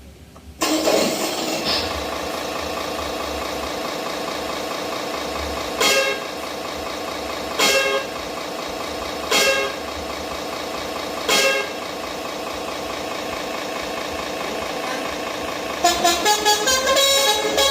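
An RC miniature truck's electronic sound module plays a simulated truck engine through a small speaker. The engine starts about half a second in and runs steadily. Four short horn blasts come a couple of seconds apart, and near the end the melodic 'basuri' musical horn plays a fast tune.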